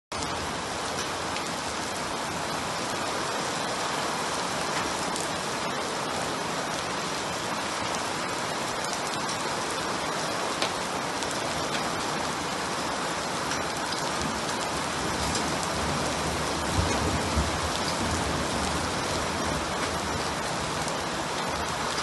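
Steady rain falling: an even, dense hiss with a few sharper drop clicks, and a brief low rumble about sixteen seconds in.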